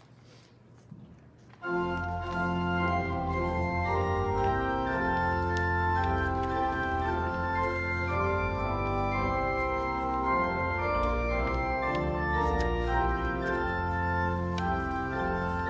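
Church organ starts a postlude about two seconds in after a quiet opening, playing sustained chords over deep pedal bass notes.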